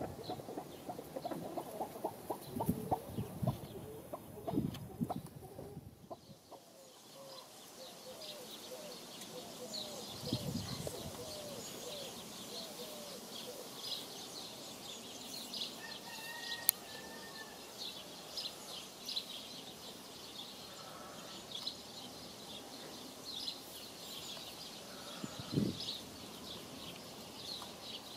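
Chickens clucking in rapid low pulses for about six seconds, then a change to a steadier background of many short, high-pitched bird chirps with an occasional low cluck.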